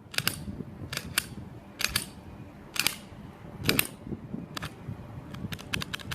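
Sharp metallic clicks of a CZ P10-C 9mm pistol's slide being racked back and forth hard on the empty gun, about eight strokes, then a quick run of lighter clicks near the end.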